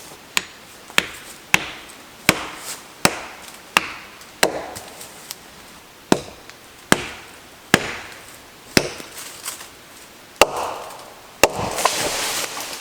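About a dozen sharp chopping blows on wood at uneven intervals, with a short pause about halfway. Near the end comes a longer crashing rustle, which fits the hung tree and its branches coming down.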